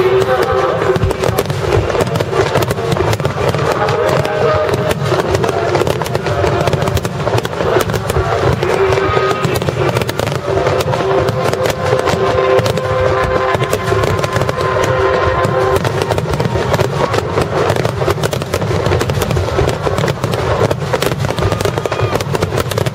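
Aerial fireworks shells bursting in a rapid, unbroken barrage of bangs and crackling.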